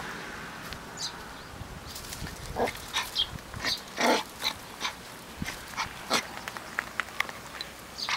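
San'in Shiba puppy giving short, high yips, a dozen or so scattered irregularly, the loudest about four seconds in.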